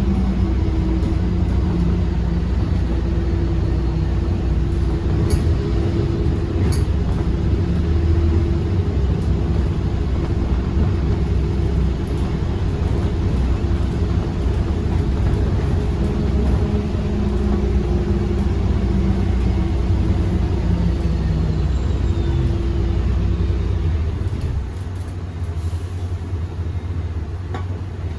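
Iveco Urbanway 18 Hybride articulated bus running, a steady low rumble with mid-pitched humming tones that break off and resume. The rumble eases a little near the end.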